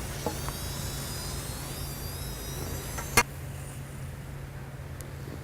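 Chicken pieces deep-frying in hot oil: a faint, steady high sizzle over a low steady hum. The sizzle stops at a click about three seconds in, and the hum carries on.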